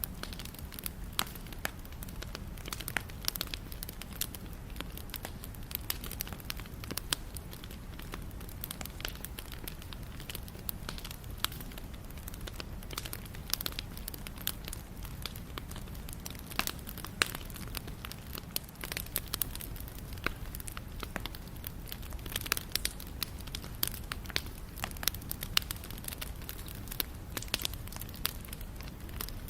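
Wood fire burning steadily: a low, even rumble of flame with frequent sharp, irregular crackles and pops from the burning wood.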